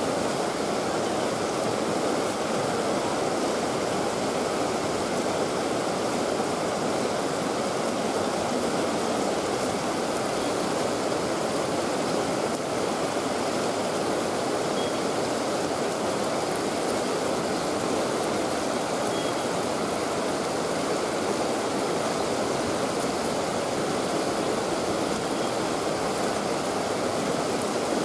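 Steady rush of flowing river water, an even unbroken noise with no change in level.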